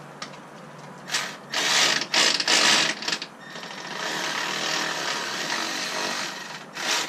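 A tool snugging up the 10mm bolt on a hood-strut bracket on a Jeep fender: a few loud bursts about a second in, then a steadier run of several seconds and one more short burst near the end.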